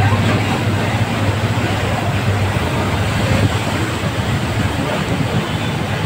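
Steady rush and splash of floodwater churned up and thrown aside by a vehicle driving through a deeply flooded street, over the low hum of its engine, which fades into the water noise a couple of seconds in.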